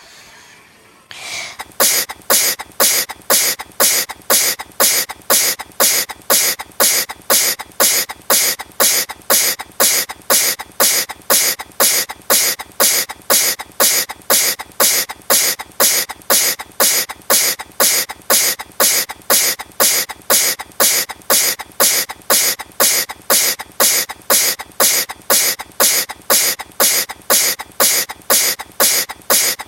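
A rapid series of short sneezes at about two a second, each burst alike and evenly spaced like a repeated loop, starting about a second and a half in.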